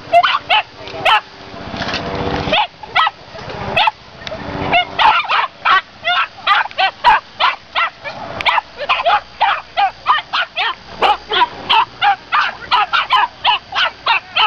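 Small dogs yapping: a run of short, high-pitched barks, scattered at first, then coming quickly, several a second, from about five seconds in.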